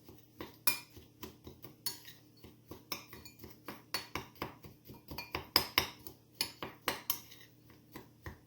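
A utensil clinking and scraping against a small dish in a quick, uneven run of taps, about two or three a second, as dry flour, oats and brown sugar are stirred together.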